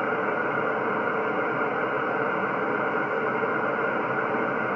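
Static from an HF ham transceiver on the 10-metre band in single-sideband mode: a steady, even hiss of band noise with no signal on the frequency, held to a narrow voice-width band.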